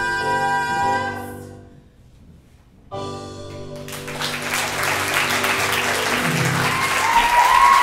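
The final held note of a musical-theatre duet, sung over the accompaniment, fades out about a second in. After a short silence a closing chord sounds, and audience applause swells, with cheers near the end.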